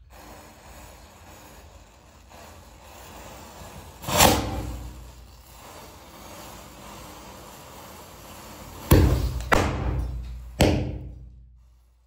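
A burning matchstick trail gives a steady noise, broken by firecrackers bursting: one sharp bang about four seconds in that dies away over a second, then three more bangs in quick succession near the end, the first of them the loudest.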